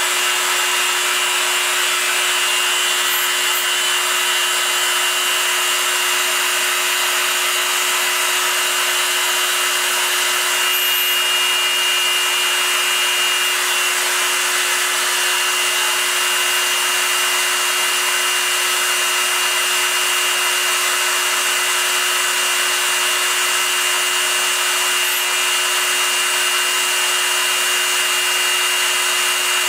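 Proxxon MF 70 mini milling machine's spindle running steadily while a small end mill cuts aluminium, a continuous whine over the hiss of the cut.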